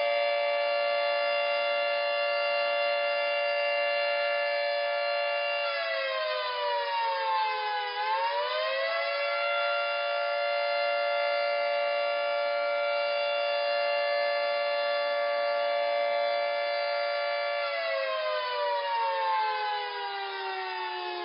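Civil defense warning siren (air-raid / tornado siren) sounding a steady held tone for about six seconds. It then drops in pitch and swings back up, holds steady again, and winds down in a long falling pitch over the last few seconds.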